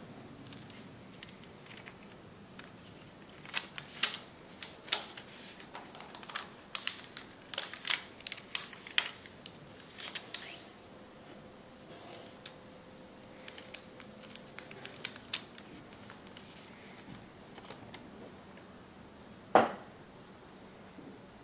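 A sheet of origami paper being folded and creased by hand: a quick run of crisp paper crackles and snaps for several seconds, then softer rustling, and one loud sharp crack near the end.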